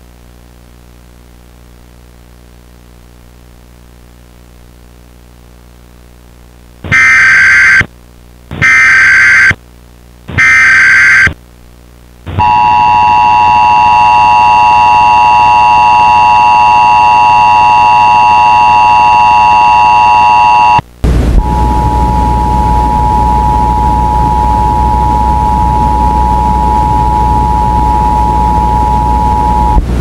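Emergency Alert System broadcast tones: after a low steady hum, three one-second bursts of SAME digital header data, then the loud steady two-tone EAS attention signal for about eight seconds. About 21 seconds in, a loud rushing static takes over while the two tones carry on more faintly.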